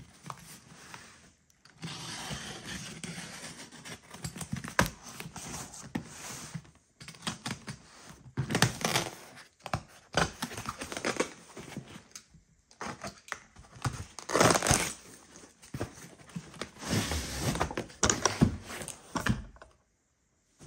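Cardboard shipping box being opened by hand: packing tape torn and pulled off, cardboard flaps scraping and rustling, with clicks and knocks from handling. The noise comes in uneven stretches and stops near the end.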